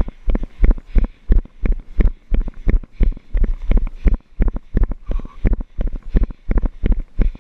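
A runner's footfalls on a gravel road, heard as a regular thud with a short crunch, about three strides a second.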